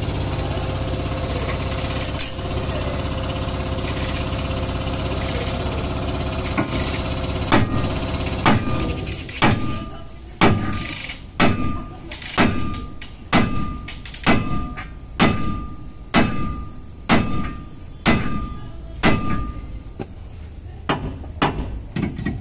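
A steady machine drone runs for the first several seconds. From about seven seconds in, a hammer strikes metal about once a second, some fourteen blows, each leaving a short metallic ring.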